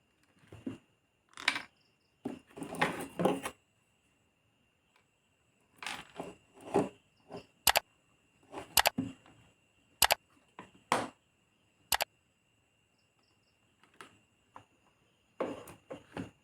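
Irregular sharp clicks and short rustling scrapes of a small screwdriver and screw as a TDA2030 amplifier IC is screwed onto its heatsink, with a cluster of crisp clicks in the middle. A faint steady high tone sits under it.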